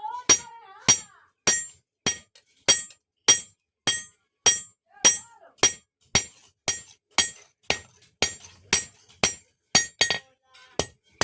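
Hand hammer striking metal on an anvil in a steady rhythm of about two blows a second, each blow ringing with a bright metallic tone: a blacksmith forging a spatula.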